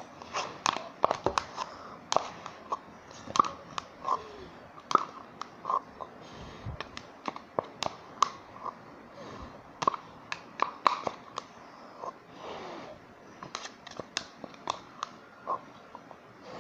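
Homemade white-glue slime being worked and squished, giving a run of irregular sticky clicks, pops and squelches.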